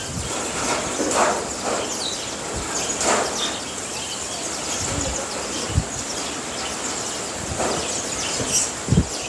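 Outdoor ambience: a steady rushing noise with faint bird chirps and a few soft low bumps.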